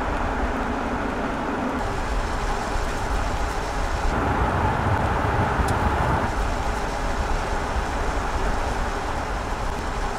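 Mercedes-Benz GLC F-Cell hydrogen fuel-cell SUV driving on a road: steady tyre and wind noise. The sound shifts about two and four seconds in.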